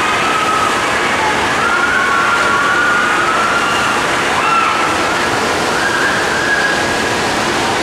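Water rushing out of a water-slide tunnel into the splash pool, a loud steady wash, as an inflatable tube raft with riders comes through it and splashes down.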